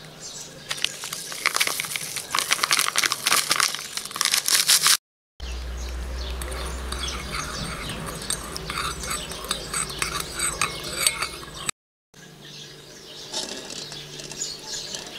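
Crinkling of a paper dye sachet as it is opened and emptied. After a cut, a metal spoon stirs dye into hot water in a ceramic bowl with light clinks over a low hum. After a second cut, soft knocks of hard-boiled eggs handled in a steel pot.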